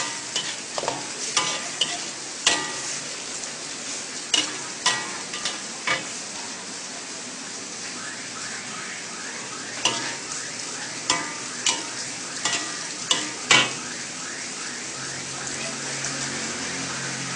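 Kway teow noodles stir-fried in a wok: a steady sizzle broken by irregular sharp clinks and scrapes of a metal spatula against the pan as the noodles are tossed.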